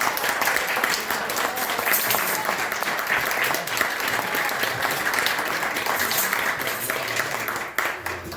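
Audience applauding, many hands clapping densely, dying away just before the end.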